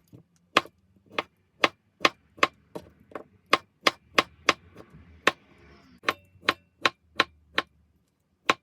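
A kitchen knife chopping beetroot into small pieces on a cutting board: a steady run of sharp knocks, about two to three a second, with a short pause near the end.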